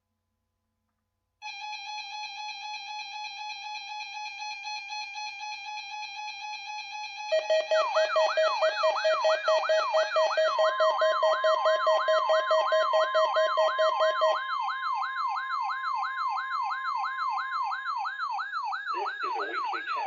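Electronic radio warning alarm tones. A steady, rapidly pulsing tone starts about a second and a half in. About seven seconds in, a louder siren joins, sweeping up in pitch about two and a half times a second over a steady lower tone. A steady higher tone enters around ten seconds, and the lower tone drops out around fourteen seconds.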